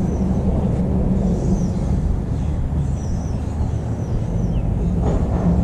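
A steady low engine drone, with faint high chirps from birds above it.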